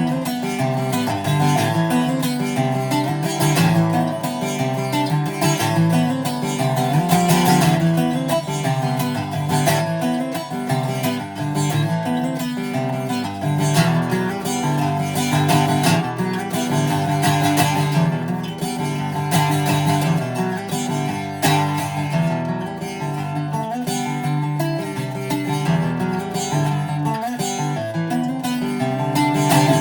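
Greco D-70 acoustic guitar being played in a sound test: chords and picked notes continuing at a steady level, with frequent strums.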